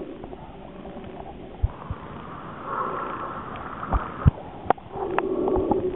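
Water sloshing and gurgling around a camera moving between underwater and the sea surface, with several sharp clicks and knocks.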